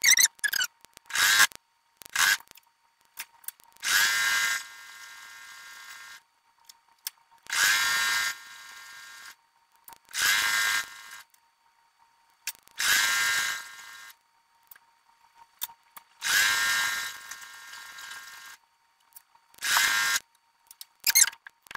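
Electric sewing machine stitching in a string of short runs with a high whine, sped up, about eight starts and stops with a faint hum between them.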